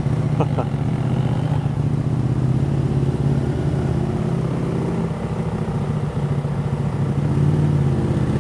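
Motorcycle engine running at low, steady revs while the bike creeps through traffic. The source is most likely the rider's own Kawasaki Ninja ZX-6R 636 inline-four.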